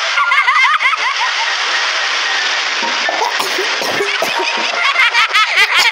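Cartoon soundtrack played through a phone speaker: a steady rain sound effect, with high-pitched cartoon voices laughing in quick rising-and-falling chirps near the start and again near the end. Scattered sharp clicks and knocks come in the second half.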